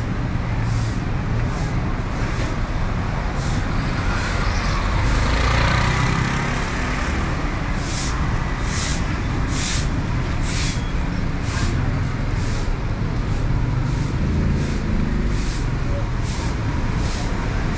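Busy street traffic: a steady rumble of passing cars and motorbikes, with a swell of hiss about five seconds in and a faint tick about once a second.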